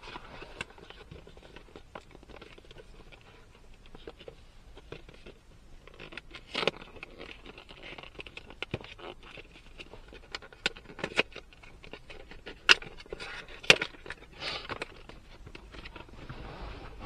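A dash cam's retail packaging being opened and handled: rustling and scraping of the box and wrapping, broken by scattered sharp clicks and taps. The two loudest clicks come about a second apart, two-thirds of the way through.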